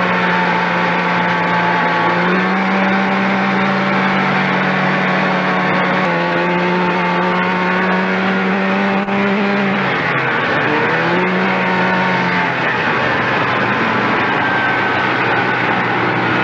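Snowmobile engine running under way, its pitch stepping up and down with the throttle; about ten seconds in it drops briefly and climbs back up, over a steady rush of track and wind noise.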